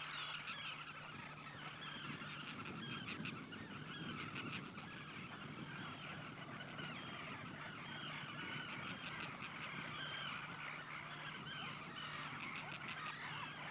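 Many Great Black-headed Gulls (Pallas's gulls) calling at once: a continuous chorus of short, overlapping calls.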